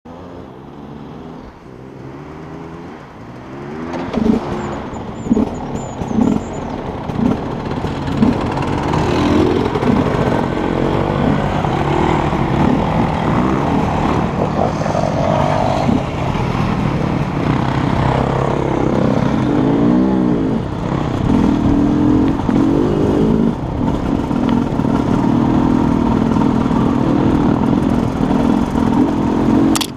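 Dirt bike engines revving and running. The sound is quieter for the first few seconds and gets louder from about four seconds in with a series of quick revs. After that the engines run steadily, their note rising and falling with the throttle, with a sharp click at the very end.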